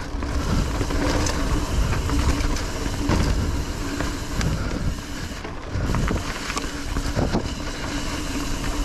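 Kona Hanzo hardtail mountain bike riding a dirt forest singletrack: tyres rolling over dirt and roots under a steady rumble, with sharp clicks and knocks from the bike several times.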